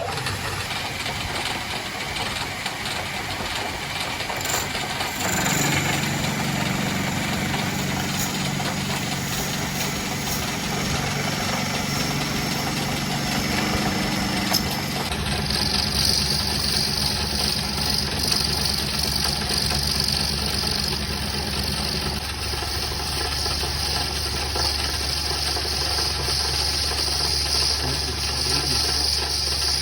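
A power tool's motor running steadily, with a hum and a steady rushing noise; the sound changes about halfway through and then holds steady.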